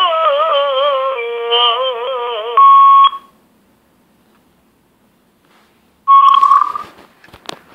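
A naat sung with a wavering vibrato ends about two and a half seconds in, cut off by a loud, steady electronic beep lasting half a second. After about three seconds of near silence a second beep of the same pitch sounds, followed by faint crackling and clicks.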